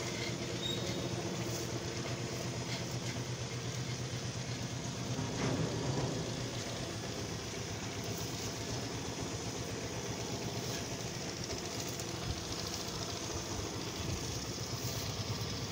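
An engine running steadily at idle, briefly louder about five seconds in.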